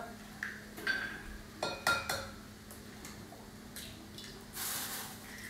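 Eggs being cracked on the rim of a ceramic mixing bowl: a few separate sharp taps of shell on the bowl, with the shells breaking open.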